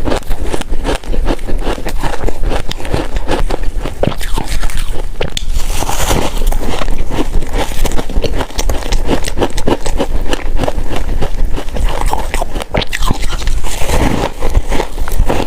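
Close-up biting and crunching of powdery freezer frost, a dense run of quick crisp crackles as the soft ice is chewed, with some scraping.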